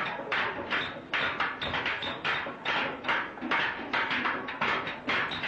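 A steady string of short, sharp taps or knocks, about two to three a second, unevenly spaced.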